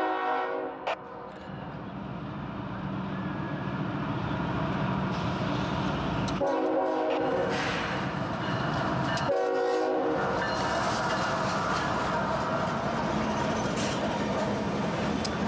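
Diesel-hauled CSX freight train approaching and passing close by. The locomotive horn sounds and cuts off about a second in, then gives two short blasts about halfway through, while the engine rumble and wheel-on-rail noise grow louder as the lead locomotives go by.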